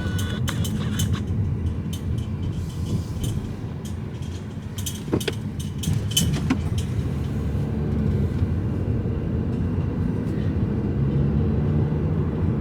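Car driving slowly, heard from inside the cabin: a steady low engine and road rumble with a few scattered clicks and knocks.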